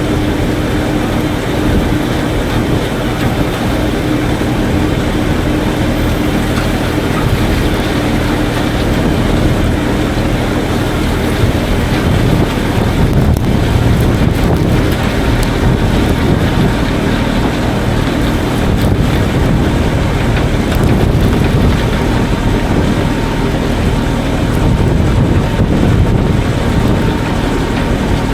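Farm machinery running steadily while feed is being made: a loud, continuous mechanical hum with a low engine-like drone.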